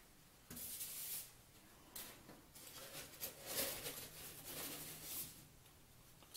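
Hands rubbing and pressing a foam shower curb down into a bed of thinset mud, making faint scuffing and rubbing sounds in several short bursts.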